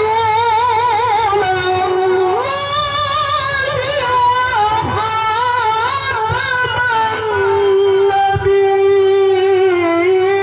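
A male qari reciting the Quran in the melodic tilawah style into a microphone: one strong, high voice drawing out ornamented, wavering phrases, with a long held note from about seven to ten seconds in.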